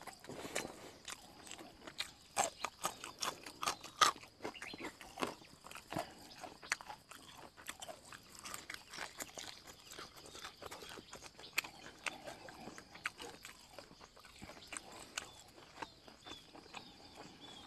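Close chewing and lip smacking of a man eating minced-fish laab and raw herbs by hand: irregular wet, crunchy clicks, the sharpest about four seconds in.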